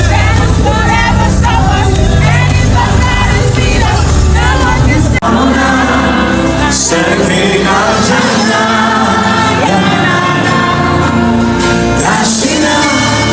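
Gospel worship music: singers over a band with a heavy bass line. About five seconds in there is a sudden break, after which the deep bass thins out, returning near the end.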